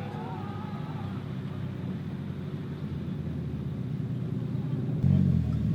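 A car engine running with a steady low drone, growing louder about five seconds in.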